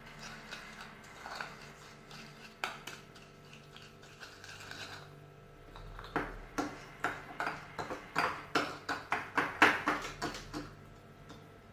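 A spoon mixing a honey-and-lemon paste in a small dish: soft scraping with a few taps at first, then, from about six seconds in, quick clinks against the dish, about three a second.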